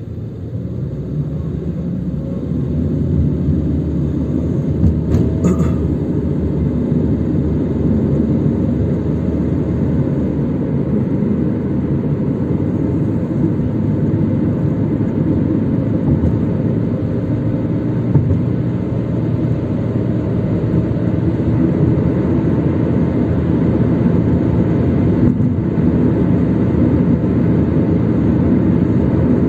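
Road and engine rumble heard from inside a moving car's cabin, growing louder over the first few seconds and then holding steady.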